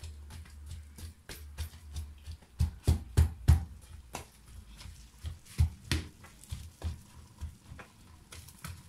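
Boiled potatoes being mashed by hand in a stainless steel pot: the utensil thuds and knocks against the pot in irregular strokes, about two a second, loudest a few seconds in.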